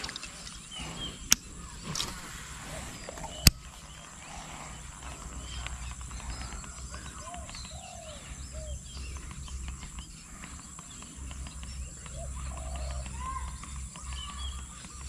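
Outdoor wetland ambience: many short chirping and croaking animal calls over a steady high-pitched whine and a low rumble. There are two sharp clicks in the first few seconds.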